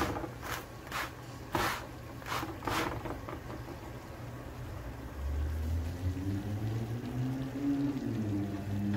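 About five short, sharp sounds in the first three seconds as a roti is cooked on a hot tawa. A low hum with shifting tones comes in about halfway through.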